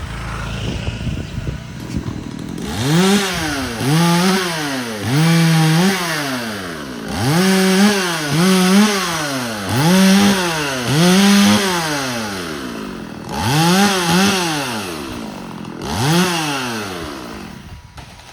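Two-stroke chainsaw revved up and down about ten times in quick succession, each rev rising in pitch, holding briefly, then falling. The revving starts about two and a half seconds in.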